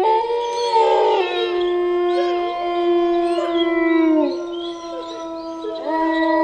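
Wolves howling in chorus. One long steady howl is held for about four seconds and drops in pitch at its end, while other howls glide above it. A new howl rises in near the end.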